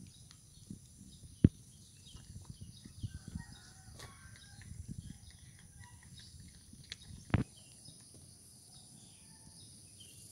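Cat chewing dry kibble, a run of small soft crunches, with two sharper knocks about one and a half seconds in and again about seven seconds in.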